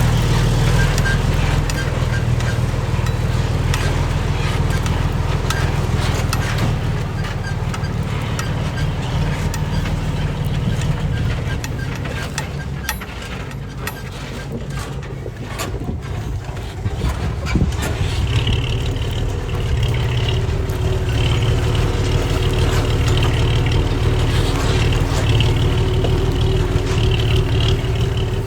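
Heavy diesel construction machinery at work: an engine running steadily under load, with frequent clanks and rattles. It dips somewhat about halfway through, then picks up again.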